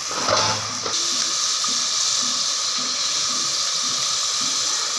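Mutton karahi in yogurt gravy sizzling steadily in the pot, a continuous hiss as the masala fries down.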